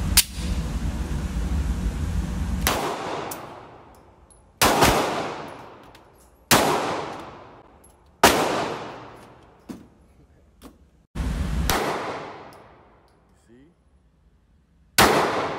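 Pistol shots fired one at a time in an indoor range, six in all, a couple of seconds apart, each ringing out into a long echo. A low rumble runs under the first few seconds, up to the first shot.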